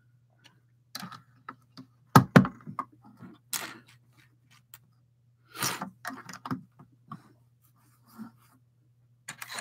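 LEGO pieces being handled and pressed onto a long grey plate: scattered light clicks and knocks on the tabletop, with two louder knocks close together about two seconds in.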